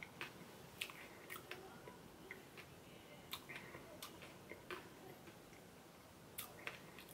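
Faint, scattered mouth clicks and lip smacks of someone eating soft ice cream close to the microphone, about a dozen short clicks at irregular intervals.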